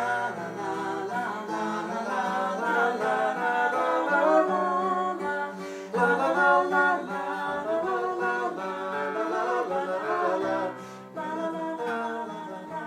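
Background music: a song with singing and instrumental accompaniment.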